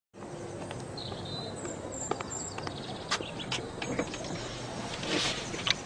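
Quiet outdoor ambience with a few short, high bird chirps and scattered light clicks and taps.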